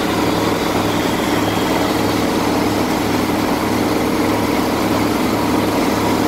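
A mobile crane's engine running steadily as it lowers a suspended mini excavator, with a low hum that pulses slowly.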